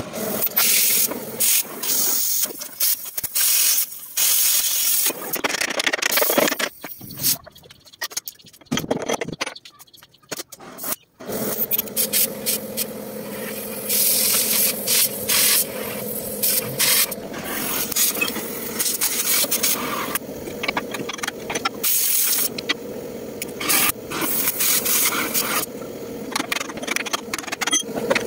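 Oxy-fuel cutting torch cutting through a steel truck chassis frame rail, its gas-fed flame sounding as a rushing noise. It comes in broken stretches at first, then runs steadily from about a third of the way in.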